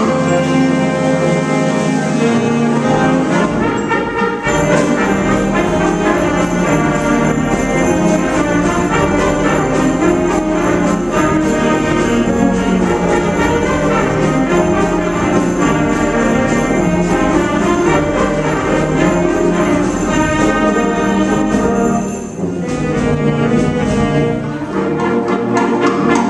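A school band playing a big-band-style Christmas arrangement, brass to the fore, with jingle bells ringing through most of it. The bells drop out and the music briefly softens about 22 seconds in, then the band plays on.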